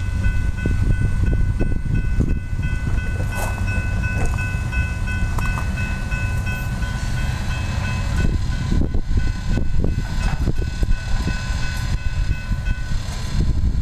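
Railroad grade-crossing bell ringing steadily while the gates are down, stopping near the end. A heavy low rumble runs underneath.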